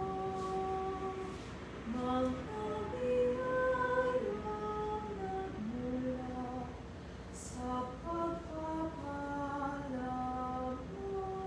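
A woman singing a slow hymn, most likely the offertory hymn, in long held notes that step and slide from one pitch to the next.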